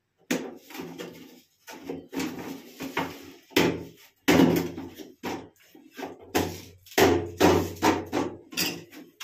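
Hard plastic knocks and clatter as parts are fitted and pressed into an empty plastic cistern flush tank: irregular sharp knocks, about two a second, each with a brief ringing tail.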